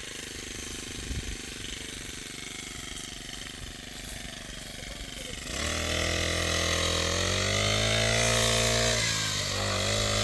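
A small engine starts running about halfway through and speeds up, its pitch rising, then runs steadily with a slight dip near the end.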